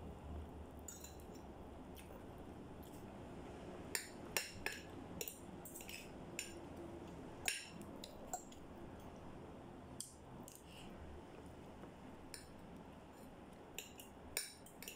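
Spoon and fork clinking and scraping against a plate in irregular sharp taps, busiest from about four to eight seconds in, over a faint low steady hum.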